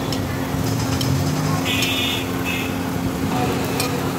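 Steady hum and hiss of a busy parotta stall, with a few light metal clinks and a brief bright rasp about two seconds in.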